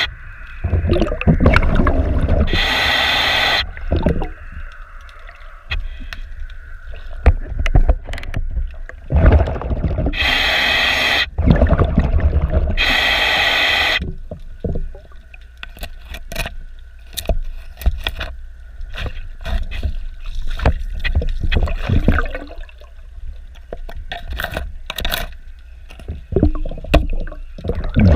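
A diver's exhaled breath heard underwater, bubbling out of the regulator in loud bursts of about a second, four times. Between breaths there is a quieter low rumble with scattered clicks.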